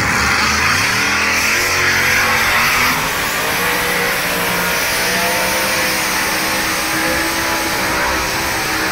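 Multi-engine modified pulling tractor at full throttle, hauling the weight-transfer sled. The engine pitch climbs over the first few seconds, then holds high and wavers slightly.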